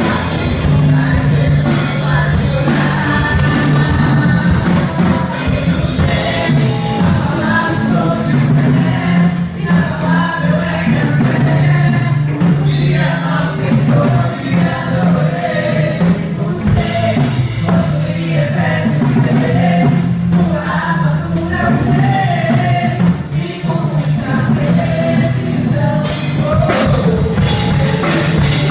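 Live church worship band playing a song, with a drum kit keeping a steady beat of about two hits a second under singing.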